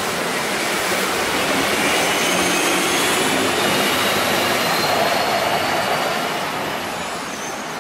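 Street traffic passing: a steady rush of engine and tyre noise that swells about midway and eases near the end, with a faint high whine slowly rising in pitch.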